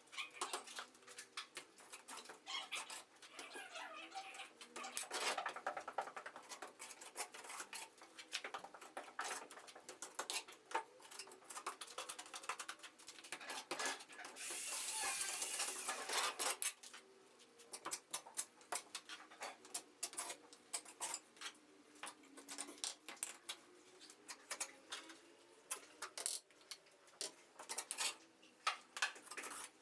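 Hand tools scraping and clinking against a wall and gear during plastering preparation, in irregular taps and short scrapes. About halfway through comes one longer, harsher scrape lasting a couple of seconds.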